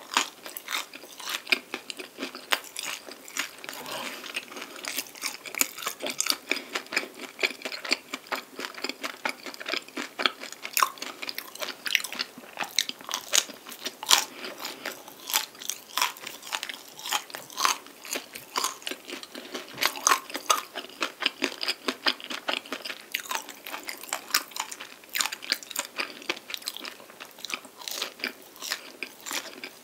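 Close-miked biting and chewing of a canelé, its crisp outer crust crunching in a dense run of small crackles.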